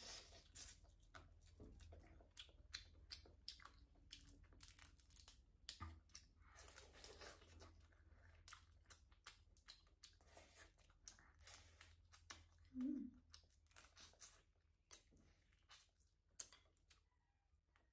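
Close-miked eating of fried crab: wet chewing, lip smacks and small crunches as meat is bitten and pulled from the shell, a dense run of soft clicks and crackles. A short low hum, like a closed-mouth 'mm', comes about two-thirds of the way through, and the clicks thin out near the end.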